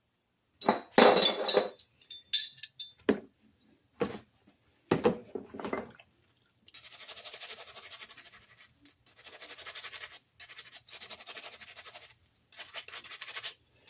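A few sharp clinks of small metal parts, then a brush scrubbing in repeated strokes of about a second each, with short pauses between, as parts are cleaned by hand.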